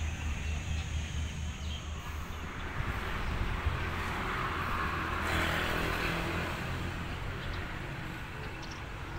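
Diesel locomotive running, a steady low engine hum, with a hissing rush that swells around the middle and then fades.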